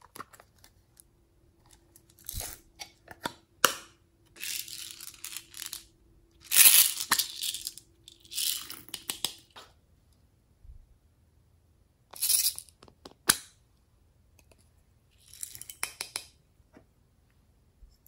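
Small plastic cosmetic cases handled close to the microphone: clicks, snaps and scraping rustles in about six short bursts with quiet gaps between.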